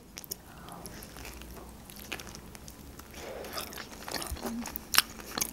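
Close-miked chewing of a soft rice-paper spring roll filled with shrimp, avocado, cream cheese and carrot, with scattered small wet mouth clicks and a sharper click about five seconds in.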